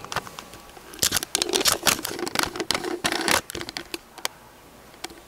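Microphone handling noise from a faulty microphone being adjusted: a quick run of clicks, knocks and rustles starting about a second in, dying down after about three and a half seconds.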